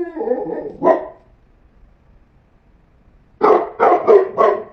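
A dog barking: a drawn-out call trails off at the start, with one bark about a second in. After a pause come four quick barks near the end.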